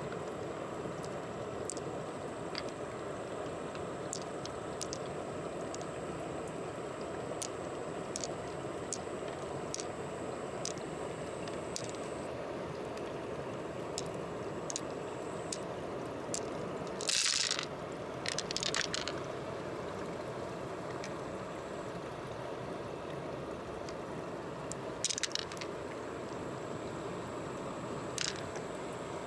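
Wet squishing of clam flesh and light clicks of pearl beads as fingers pick them out of a giant clam, over a steady rush of flowing water. A few louder crackling bursts come a little past halfway and again later.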